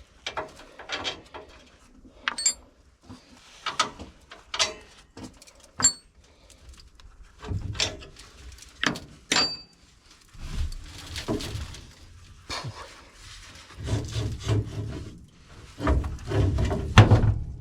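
Irregular knocks, scrapes and clinks of hand work on metal machinery parts, a few strikes ringing briefly like struck steel, with bursts of low rumbling handling noise in the second half.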